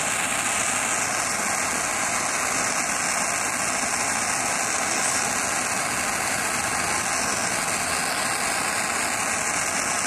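Handheld propane torch burning with a steady, even hiss, its flame heating a copper tube joint for soldering a break.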